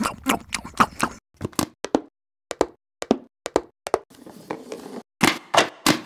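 A quick, uneven run of sharp taps and knocks, about fifteen to twenty in all, with short silent gaps between them and the loudest few near the end.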